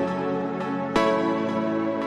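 Instrumental music with held chords; a new chord is struck about a second in.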